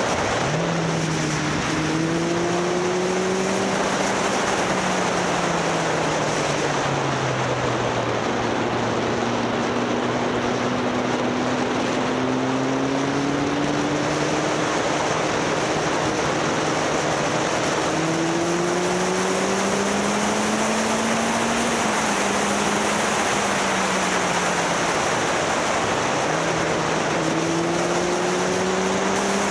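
Motorcycle engine running under heavy wind noise, its pitch climbing slowly then dropping several times as the bike speeds up, shifts and eases off.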